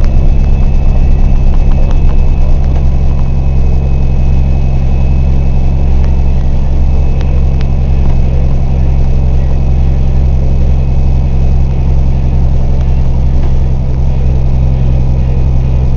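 Vehicle engine and road noise heard from inside the cab while driving through snow: a loud, steady low drone.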